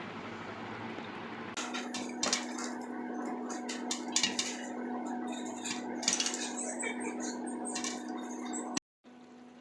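Kitchen utensils clinking and scraping against dishes in irregular, sharp knocks, over a steady low hum. The clinking cuts off abruptly near the end.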